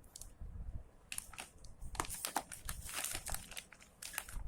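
Packaging being handled and crinkled as items come out of a painting kit, in several short spells of rustling.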